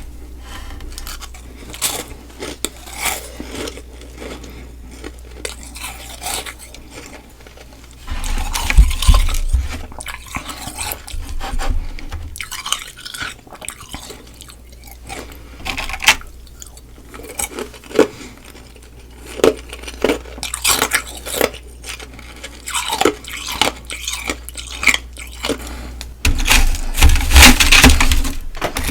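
Close-miked ice eating from a cake of humidifier frost and hollow igloo ice: scattered clinks and scrapes against a dish, with crunching and chewing. Loud dense crunching comes about eight seconds in and again near the end.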